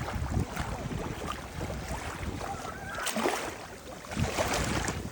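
Gentle sea waves lapping and washing at the shore, with a wash swelling about three seconds in and again a second later.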